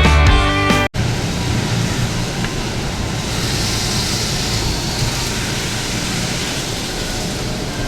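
Rock music cuts off abruptly about a second in, then a steady rushing noise with no clear rhythm or tone.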